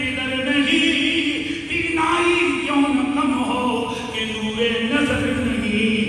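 A man chanting elegiac Urdu verse (marsiya) in a slow melodic style, holding notes of about a second each that step up and down in pitch.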